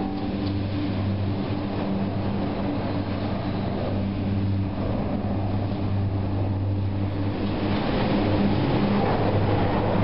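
Doppelmayr eight-seat detachable gondola running in its station, with cabins rolling slowly through on the station conveyor: a steady mechanical hum that grows a little louder near the end.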